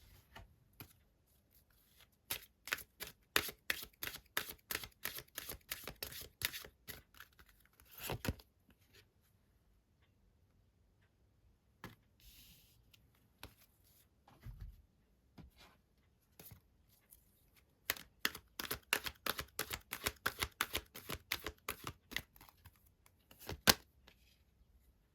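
Tarot cards being shuffled by hand: two runs of quick card clicks several seconds each, with a few single knocks of the deck between and near the end.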